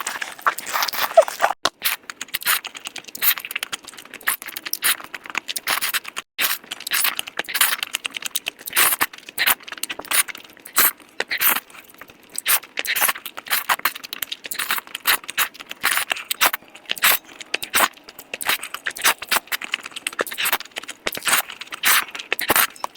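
Close-miked eating: rapid, irregular crunching and wet clicking chewing sounds, with two brief drop-outs in the first third.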